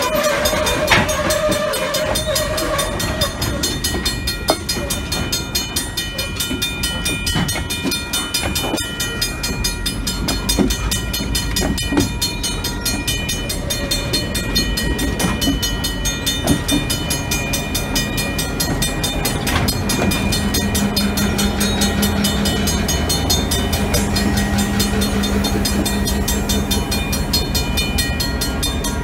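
A freight train rolls slowly past at close range, its wheels clicking and clanking now and then over the rail joints, with a crossing bell ringing steadily. In the second half the trailing EMD GP38-2 diesel locomotives go by, adding a steady engine drone.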